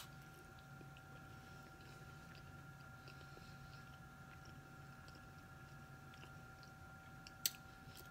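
Faint chewing of a mouthful of hard-boiled egg, with soft wet mouth clicks and one sharper click about seven and a half seconds in. A faint steady electrical whine and hum runs underneath.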